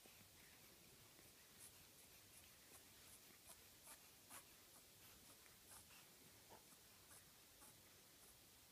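Near silence, broken by faint, irregular small rustles and clicks from the two newborn babies stirring on the bedding.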